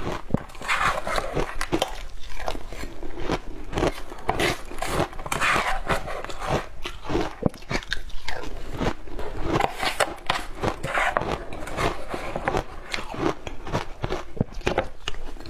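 Someone biting and chewing shaved ice close to the microphone: a continuous run of crisp, irregular crunches and crackles.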